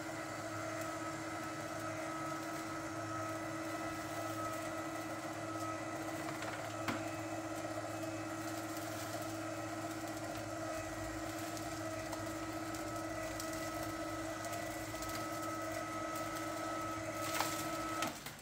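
Litter-Robot 3 automatic litter box's motor turning the globe in a self-cleaning cycle: a steady machine whine with a clear pitched hum. There is a small click about seven seconds in and a clunk just before the motor stops near the end. The owner says this machine noise has grown very loud with use.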